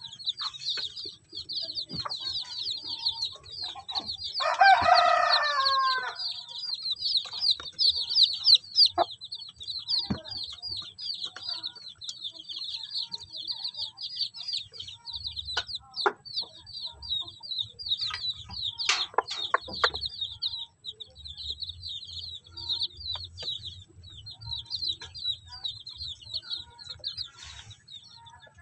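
Newly hatched native chicks peeping without a break, many short, high cheeps each sliding down in pitch. About four seconds in, an adult chicken gives one longer, lower call lasting about two seconds.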